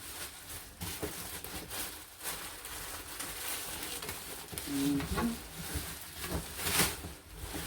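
Packaging being handled while the luggage is unwrapped: irregular rustling and crinkling, loudest in a sharp crackle near the end. A brief low vocal sound about five seconds in.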